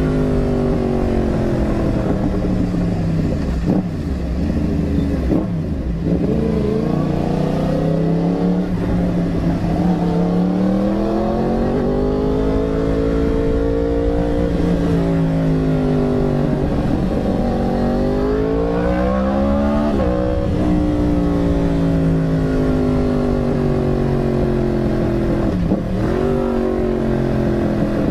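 Yamaha R1 sportbike's inline-four engine running on the road, revs climbing and falling as the rider accelerates and shifts, with several sharp drops in pitch at the gear changes and a long easing-off of revs towards the end. Wind noise rushes across the microphone throughout.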